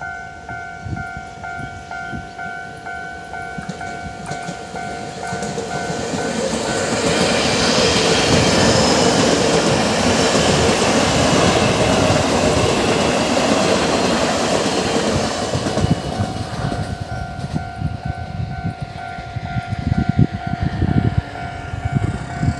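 Electric multiple unit train passing close by with a loud rush of wheel and rail noise, loudest in the middle and fading after. Before and after it passes, a level-crossing warning bell dings in a steady, even rhythm, drowned out while the train goes by. Low thumps come near the end.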